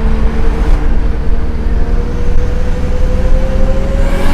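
Single-turbo Nissan RB26 straight-six in a 240SX running under load with a heavy low rumble, its steady engine note rising slowly in pitch. A brief rush of noise comes right at the end.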